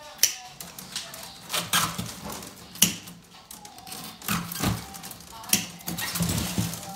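Willow rods of a wicker hamper being worked by hand and with a hand tool: about eight irregular sharp clicks and knocks, with rustling between them.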